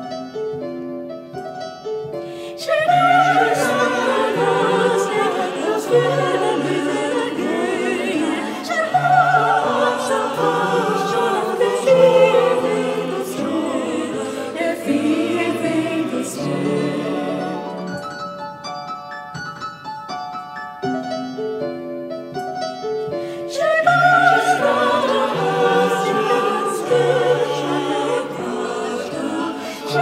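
Mixed choir of men's and women's voices singing in Scottish Gaelic with piano accompaniment. The piano plays alone for the first few seconds before the choir comes in. The voices drop out for a piano passage around the middle and return for the last several seconds.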